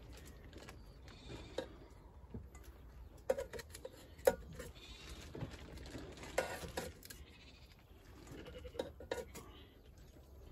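Sheep bleating several times, mixed with light metallic clicks of tongs against an air fryer basket as cooked sausages and bacon are lifted out.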